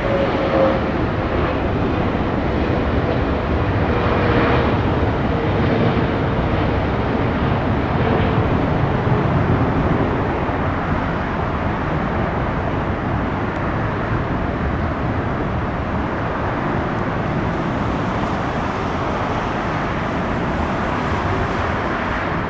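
Jet airliner engine noise: a loud, steady rush, with a faint tone sliding slowly down in pitch over roughly the first nine seconds.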